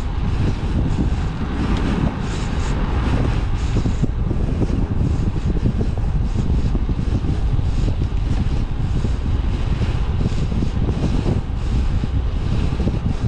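Wind buffeting a GoPro Hero 8's microphone on a moving bicycle, a steady loud rumble that flutters without letting up.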